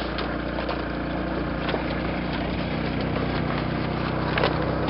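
A small engine idling steadily on a fishing outrigger boat, with a couple of brief knocks as the net and catch are handled.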